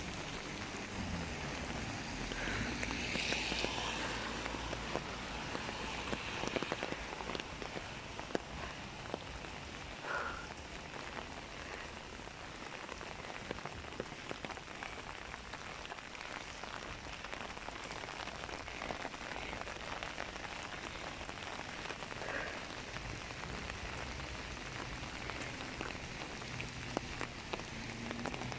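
Steady rain falling, with many small drops ticking on an open umbrella overhead.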